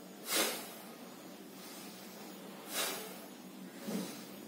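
Bhastrika pranayama (bellows breath): a man breathing forcefully through the nose, with the lungs filled fully and then pushed out under pressure. Two loud breaths come about two and a half seconds apart, with a fainter one near the end.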